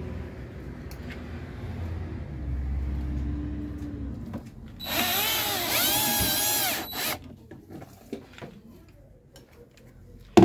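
Power drill running for about two seconds, its pitch rising and falling in a few pulses as the trigger is worked, driving into the air conditioner's metal casing. A sharp knock near the end.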